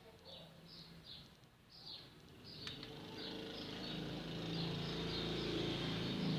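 A bird chirping in short repeated notes, about two a second, with one sharp click near the middle. From about halfway in, an engine hum rises and grows steadily louder.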